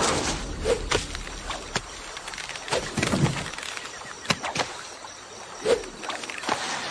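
Sound-effects track of an animated jungle scene: scattered taps, creaks and leaf rustles of a figure clambering through tree branches, with a couple of soft swishes, over a faint jungle ambience.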